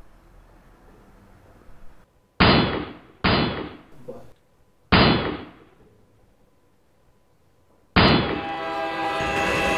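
Three loud pistol shots with ringing, echoing tails, the first two less than a second apart and the third about a second and a half later. About eight seconds in, loud sustained dramatic music swells in.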